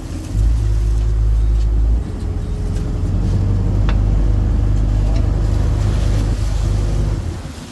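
A small fishing boat's engine running steadily, under heavy wind rumble on the microphone.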